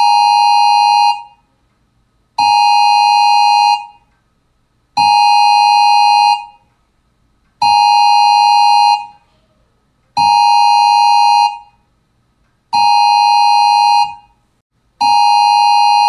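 Electronic emergency alert tone sounded seven times, each steady tone lasting a little over a second with about a second's gap between them: the alert signal of a mock Emergency Alert System Emergency Action Notification.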